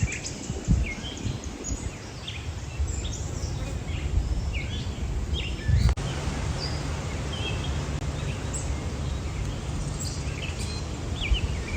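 Birds chirping and calling here and there over a steady low rumble of wind on the microphone.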